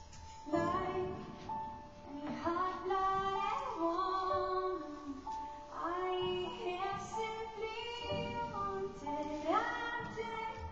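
Music: a woman singing a slow melody over long held instrumental notes.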